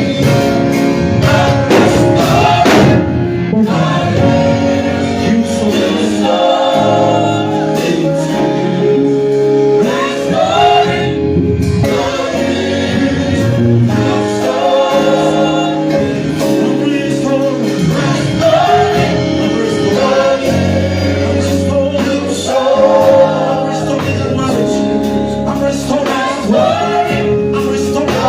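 Congregation singing a gospel song together with a live band.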